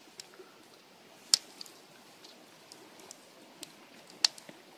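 Wood campfire crackling: a few sparse, sharp pops over a faint steady hiss, the loudest about a second in and again near the end.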